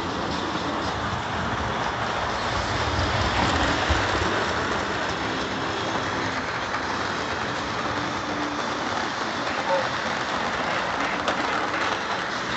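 Lionel O-scale model freight train running on FasTrack: a steady rolling rumble and hiss of the cars' wheels on the track.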